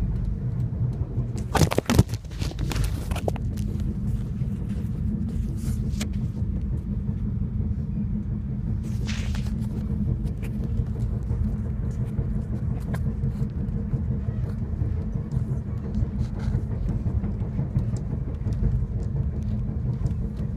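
Steady low rumble of a moving passenger train, heard from inside the carriage, with a short burst of sharp knocks and rattles about two seconds in and a few faint clicks later.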